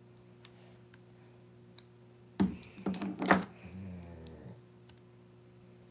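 A few sharp clicks and taps about two and a half seconds in, with a short wordless vocal sound, over a steady low hum.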